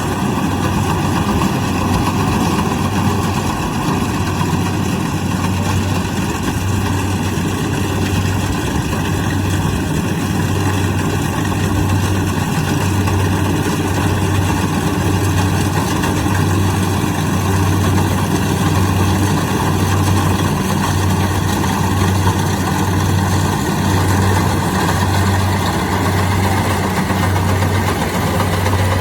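Kubota DC-70 Plus combine harvester running steadily, its engine hum swelling and fading about once a second over a constant mechanical noise.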